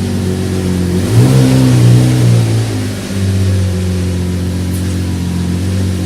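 Lamborghini Murciélago LP640's V12 on its stock exhaust, idling, then revved once about a second in, held briefly and dropping back to idle about three seconds in.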